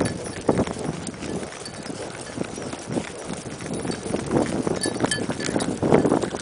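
Hoofbeats of gaited trail horses on the move: an uneven clip-clop of hooves, louder near the end.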